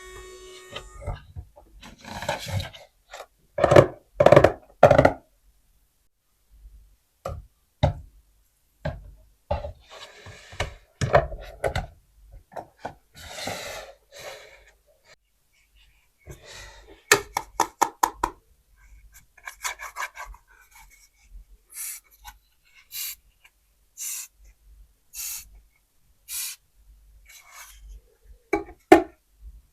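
Plastic toy dishes and toy sink parts being handled: irregular knocks, clatters and rubbing, in scattered bursts.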